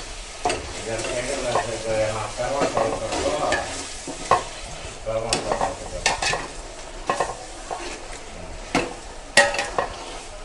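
Chicken pieces frying in sizzling masala, with a spoon stirring and scraping against the pan in irregular knocks.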